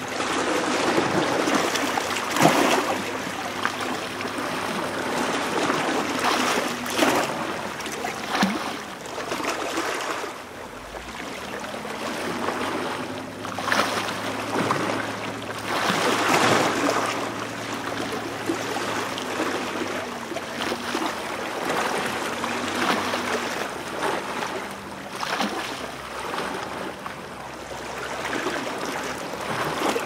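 Sea water washing and splashing over rocks at the tideline, swelling and easing in irregular surges, with trickling water between them.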